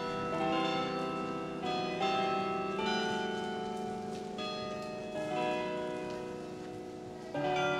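Bell music: struck bell-like notes ring and overlap, with a new note or chord sounding every second or so and each one left to die away slowly.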